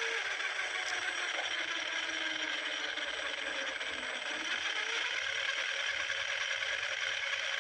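Mahindra Treo Plus 8 kW electric drive motor running with a steady mechanical rattle and scrape. The fault is put down to a worn bearing and a gear that runs with a catch.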